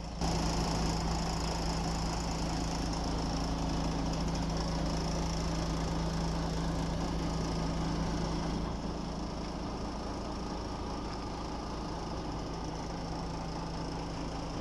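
Diesel engine of a MAN concrete mixer truck running steadily, stepping up in level just after the start and easing back down about two-thirds of the way through.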